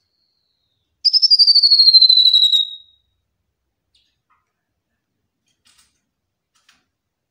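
Tepus lurik mini (striped tit-babbler) singing: one fast, pulsing whistled trill about a second in, lasting nearly two seconds and falling gradually in pitch.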